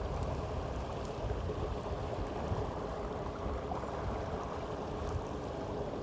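Steady low rumble of water and wind, with a faint steady hum underneath.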